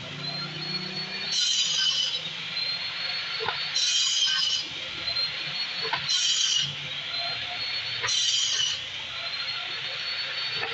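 Table saw running with a steady high whine while laminated chipboard is cut into short pieces: four harsh cuts about two seconds apart, each lasting under a second, with the blade's whine dipping under each cut and climbing back, and a few sharp knocks as pieces are handled between cuts.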